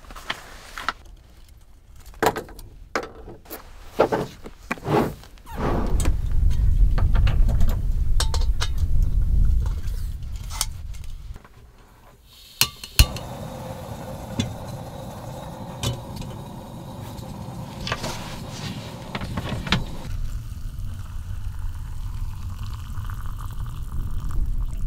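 Clinks and knocks of camp cookware being handled, then a low rumble for a few seconds. About halfway through, a small canister-top gas stove lights with a sharp click and its burner hisses steadily, and near the end water is poured from a kettle into an instant-noodle cup.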